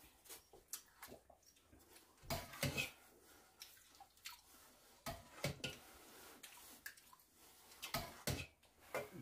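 Faint, scattered clinks and knocks of utensils against bowls, with wet scooping of thick pumpkin porridge being served.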